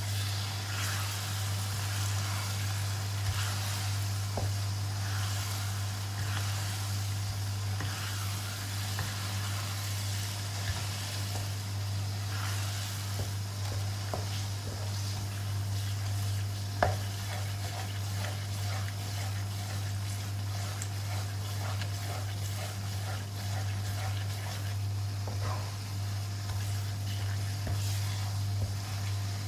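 Thick chilli sambal sizzling in a non-stick wok while a wooden spatula stirs and scrapes through it, with scattered light knocks of the spatula on the pan and one sharper knock a little past the middle. A steady low hum runs underneath.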